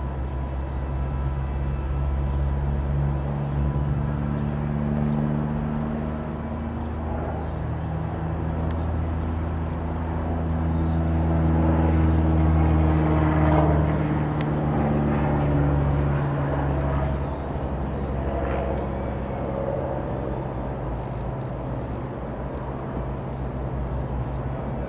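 Light aircraft's piston engine droning as it passes, building to its loudest about halfway through and then fading.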